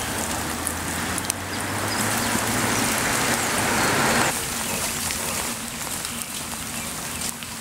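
Steady noise of light rain, with a low engine hum beneath it. The sound drops and changes abruptly about four seconds in.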